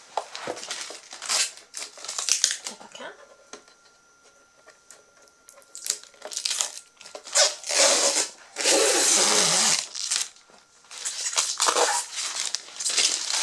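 Thin clear protective plastic film being peeled off a foil applicator machine's plastic casing and crinkled in the hand, in irregular rustling bursts. It quietens for a couple of seconds about four seconds in, then is loudest about eight to ten seconds in.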